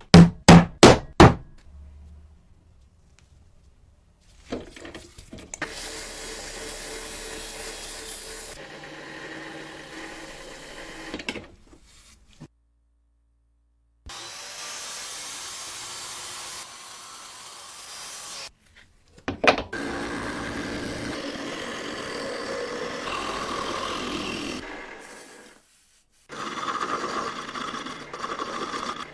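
Workshop restoration work: a quick run of about five sharp knocks at the start, then several stretches of steady abrasive rubbing, broken by short gaps of silence.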